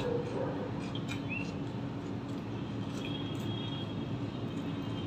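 Close-miked mouth sounds of a person chewing food, with soft wet clicks, over a steady background hum. A short, high rising chirp comes about a second in.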